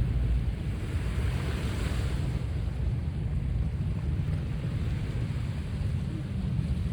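Sea waves washing in on the shore, one swelling hiss of surf peaking about two seconds in, over a steady low rumble of wind on the microphone.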